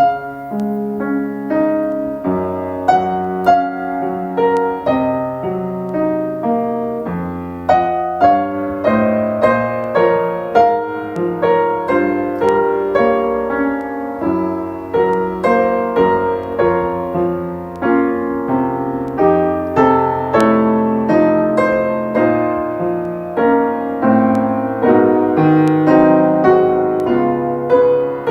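Piano playing a song: a melody over chords with a low bass line, notes struck steadily throughout, starting abruptly out of silence.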